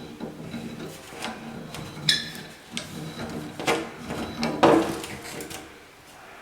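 Metal clicks, scrapes and knocks of an adjustable wrench working a shower faucet's valve stem out of the valve body. A ringing metal clink comes about two seconds in, and the loudest knocks come near the end.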